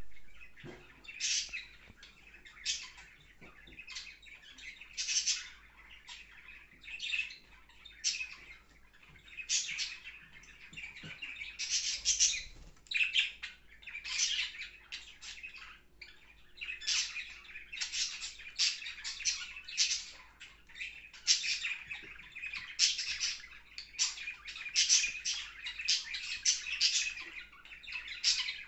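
Budgerigars chirping and chattering: a steady run of short, high calls coming in quick clusters every second or two.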